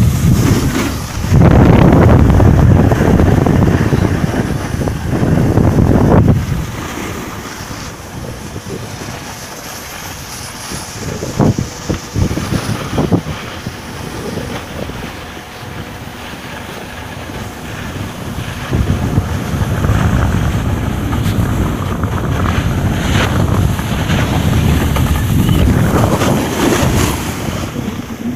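Wind buffeting the microphone of a camera moving fast down a ski slope: a low rushing noise, heaviest in the first six seconds and again over the last nine or so, easing in between, with a few short knocks near the middle.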